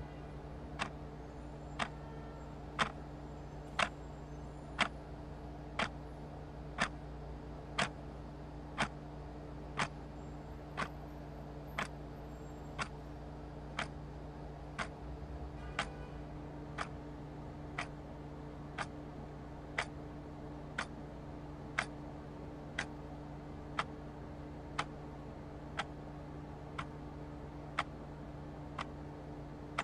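Clock ticking steadily about once a second over a steady low room hum.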